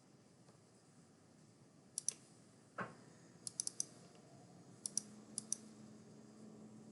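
Sharp clicks at a computer: a quick pair, a duller thump, then a fast run of four clicks and three more, from working a computer to select and upload a file.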